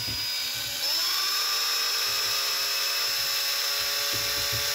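Cordless screwdriver's electric motor whining as it spins a whisk attachment in a bowl of water to dissolve jelly powder. About a second in it speeds up, the whine rising in pitch and getting louder, then holds steady, with a few low knocks near the end.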